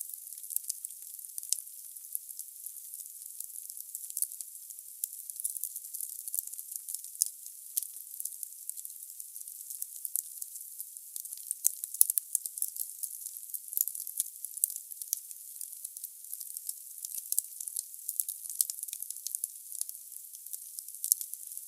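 Firewood burning in a fireplace: a steady hiss with dense, irregular crackles and small pops, and one louder pop about twelve seconds in.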